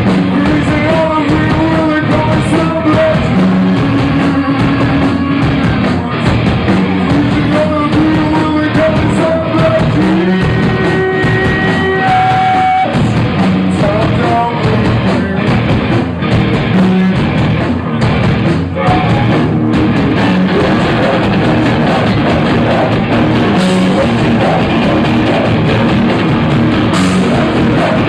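Live rock band playing loudly, heard from the audience: drum kit, guitars and a singing voice over a steady beat, with a held melody line through the first half.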